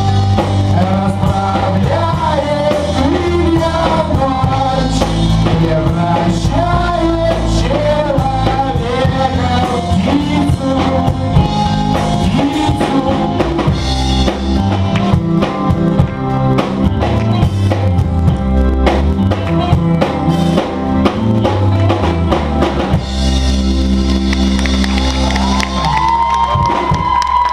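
Live rock band playing a song: a singer over a drum kit and bass, with a fuller instrumental passage taking over about two-thirds of the way through.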